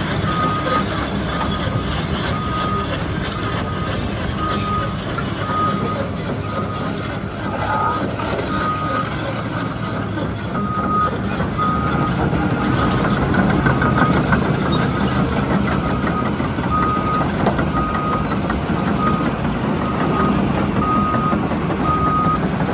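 Cat 336FL crawler excavator's diesel engine running, with its travel alarm beeping steadily, about twice a second, as the machine moves on its tracks.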